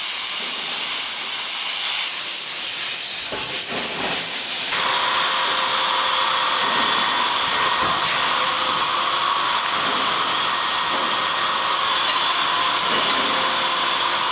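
Steady, loud hiss of rushing air or gas in a forging shop, with no rhythm. It steps up and gets louder about five seconds in.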